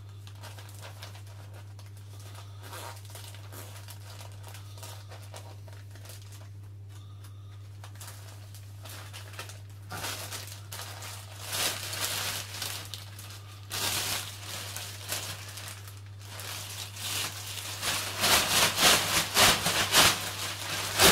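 Thin plastic rubbish bag being worked open by hand: faint handling at first, then crinkling from about halfway, and a quick run of loud rustling flaps near the end as it is shaken open. A steady low hum sits underneath.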